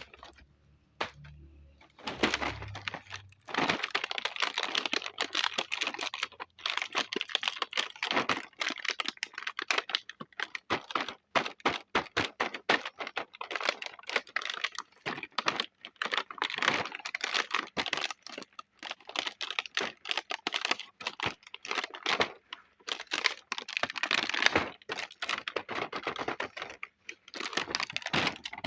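Small plastic pieces of a miniature toy kitchen set being handled and unboxed: dense, rapid clicking and tapping of light plastic parts, starting about two seconds in.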